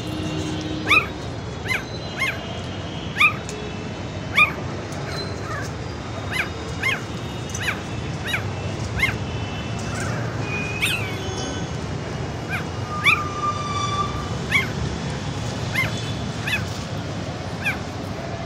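Puppies giving short, high yelps and whimpers, roughly one a second, over a steady low background noise.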